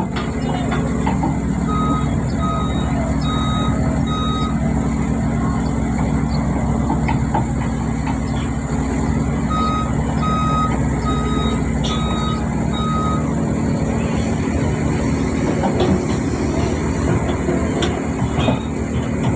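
Backhoe's diesel engine running steadily under load while digging, with scattered knocks from the bucket. Twice its reversing alarm sounds a run of five or six evenly spaced beeps, once about two seconds in and again about ten seconds in.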